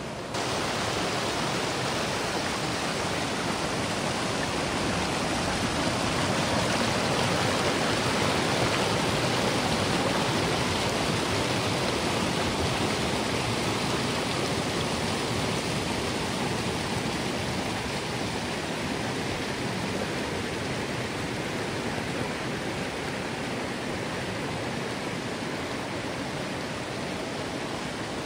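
Steady rush of fast-flowing creek water, with no other sound standing out.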